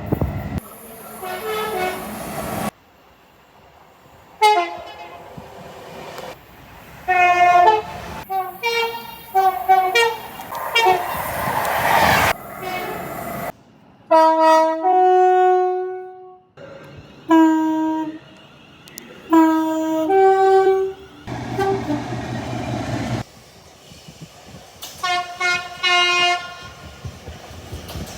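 A rapid succession of train horns sounding in short blasts, some a single chord and some stepping between two notes, each clip cut off abruptly by the next. Between the horns come stretches of noise from a running train.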